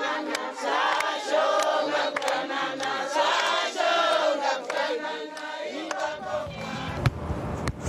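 A group of voices singing and chanting together. About six seconds in the singing fades and a low outdoor rumble takes over.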